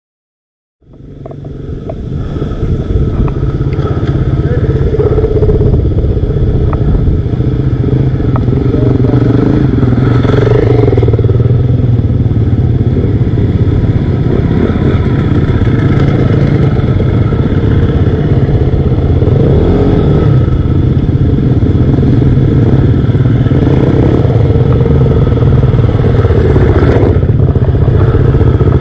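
Off-road motorcycle engine running loud and steady close to the microphone, fading in about a second in.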